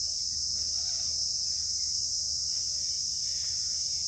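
Steady, high-pitched insect chorus, unbroken throughout.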